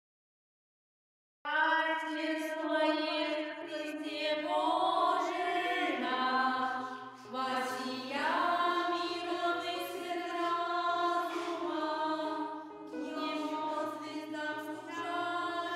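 Choir singing a slow, chant-like hymn in long held chords over a low line that moves in steps. It begins after about a second and a half of silence.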